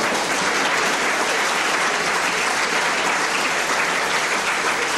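Audience applauding, many hands clapping together in an even, dense patter.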